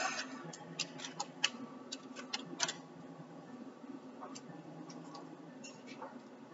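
Light, irregular clicks and taps of oracle cards being handled and laid down, thickest in the first few seconds, over a steady low hum.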